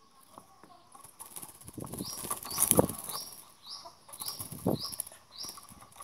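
Long-tailed shrike fluttering its wings and moving about inside its cage, with rustling wingbeats and light knocks, loudest about two to three seconds in.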